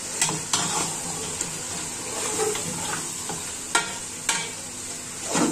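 Goat trotters frying in oil and spice masala in a pressure cooker pot, with a steady sizzle. A long metal spoon stirs them, clinking sharply against the pot several times.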